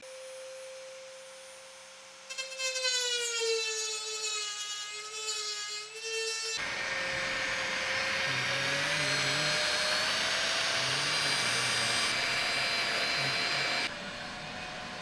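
A Dremel rotary tool with a cutoff disc whines at a steady high pitch, then gets louder about two seconds in and its pitch sags as the disc cuts into the aluminium wing leading-edge skin. About six and a half seconds in it gives way abruptly to a cordless drill drilling aluminium, a harsher, noisier whine that drops off near the end.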